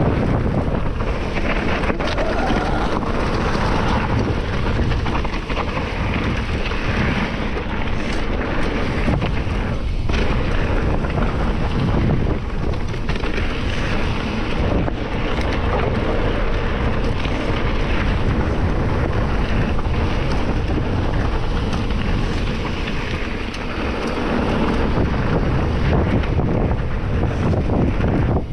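Mountain bike on a rough forest singletrack: loud, steady wind buffeting the camera microphone over the rumble of tyres on the trail, with scattered knocks and rattles from the bike.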